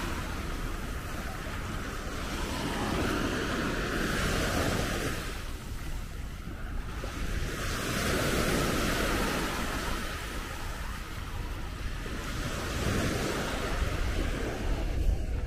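Sea waves breaking on a beach, surging and fading every few seconds, with wind buffeting the microphone.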